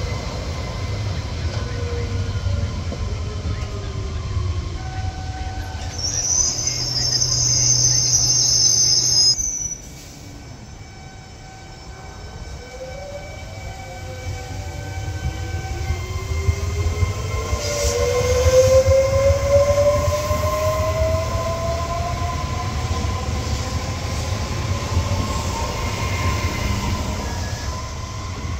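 Alstom Coradia Stream 'Pop' (ETR 104) electric multiple unit at a station. At first its traction motors whine in falling tones as it slows, with a high-pitched squeal for a few seconds. After a sudden cut, the motors whine in steadily rising tones as it pulls away.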